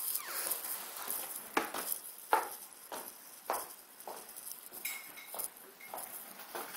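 Footsteps on a hard floor with light knocks, about one every half second to second, as someone walks around a room, and a brief high squeak about five seconds in.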